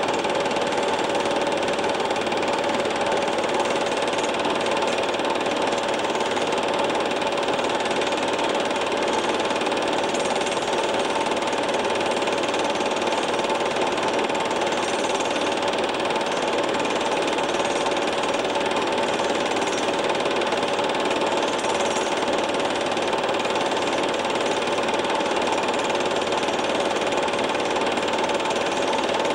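Cine film projector running steadily: a constant mechanical whir with two steady hum tones.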